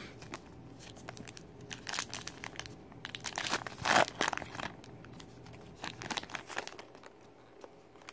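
A trading card pack wrapper being torn open and crinkled in the hands, in irregular crackles, loudest about four seconds in, with a few more rustles about two seconds later.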